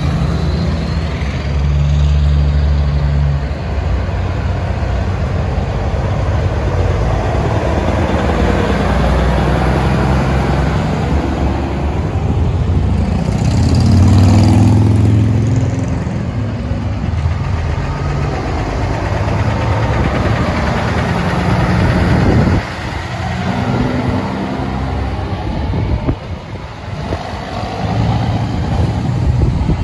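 Diesel semi-truck engines running as the trucks pull trailers past at low speed, one after another. A motorcycle rides past close by about halfway through, the loudest moment.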